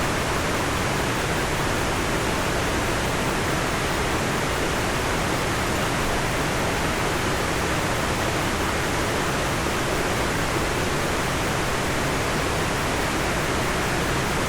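Hirayu Great Falls, a large waterfall, making a steady, even rushing sound of falling water that never changes in level.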